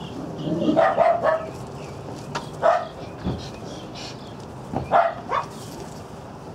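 Dogs barking in short, sharp barks: a few in quick succession about a second in, one near three seconds, and a few more around five seconds.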